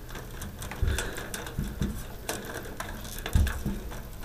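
Close-up handling noise of fingers twisting and bunching plastic-insulated fluorescent ballast lead wires together: irregular small clicks and rustles, with a few dull bumps, the loudest about three and a half seconds in.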